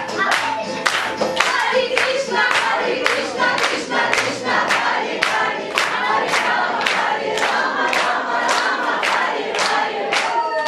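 A group of voices singing together in chorus, with many hands clapping in time at about two claps a second.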